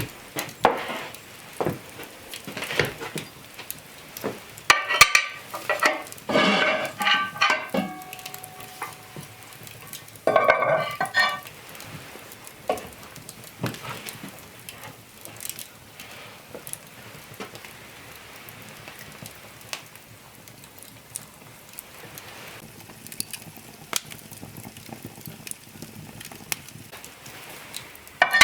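Food sizzling in a pan, with scattered clinks and scrapes of cookware and utensils. Chickens call twice in the background, about five seconds in and again about ten seconds in.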